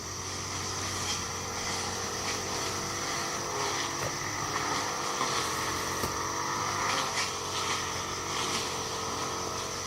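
A small engine running at a steady speed, its pitch wavering slightly.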